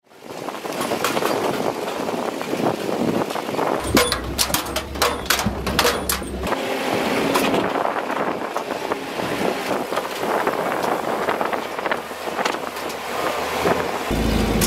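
UAZ Bukhanka van driving over a rough dirt track, the engine running with body rattles and knocks, which come thickest a few seconds in.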